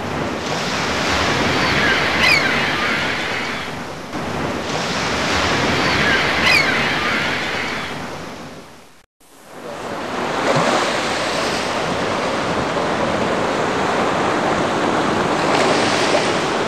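Ocean surf: waves washing in and out, the noise swelling and fading every few seconds and cutting out briefly about halfway through. Two faint high gliding sounds ride over it in the first half.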